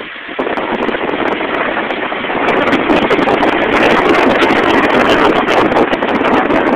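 Loud grinding from a 2000 Nissan Maxima's wheel during a left turn, starting suddenly about half a second in and growing louder a couple of seconds later: a bent brake pad rubbing against the thin round metal dust shield.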